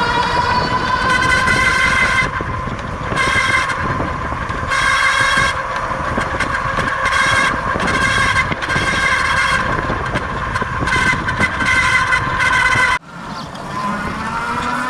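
Rear hub motor of a Lectric 2.0 Step-Thru e-bike whining as the wheel spins, its pitch slowly rising. A harsher noise cuts in and out over it every second or so. This is the odd sound the owner fears may mean a failing motor. The motor cuts out suddenly about 13 seconds in, then whines up again.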